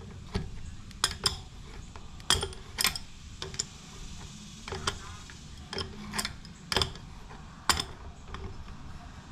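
Irregular sharp metallic clicks and clinks, about a dozen, as an adjustable wrench and a castle nut are worked on the rear axle of a moped wheel.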